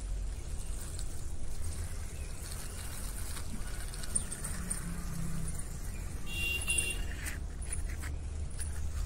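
Small plastic toy car pushed by hand, its wheels rolling on rough concrete, over a steady low rumble.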